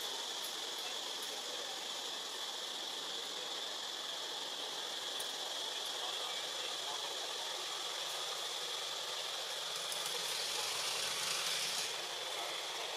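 Steady forest ambience: an even hiss with a continuous high-pitched drone, growing louder for a couple of seconds near the end.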